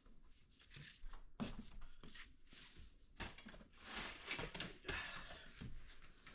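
Faint, scattered rustling and soft knocks of fabric being handled on a couch.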